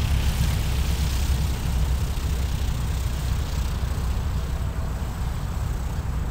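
Distant RV-6A light airplane's piston engine running as it rolls down the runway, heard as a steady low drone with a hiss over it.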